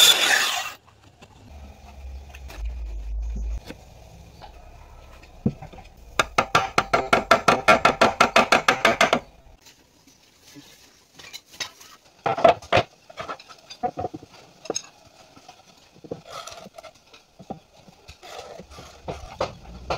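A hand-held power saw cutting wood cuts off within the first second. Wood knocks and clicks follow, with a fast, even run of sharp clicks, about eight a second, lasting some three seconds in the middle.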